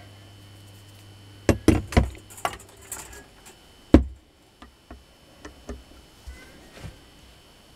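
Knocks and clatter of washing-machine motor parts and a screwdriver being handled on a metal workbench, the loudest knock about four seconds in as the armature is set down. Then lighter ticks of the screwdriver against the armature's commutator end.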